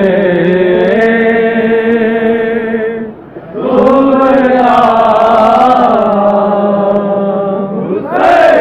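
Male voices chanting a nauha, a Shia mourning lament, in long held phrases, with a short break just after three seconds in.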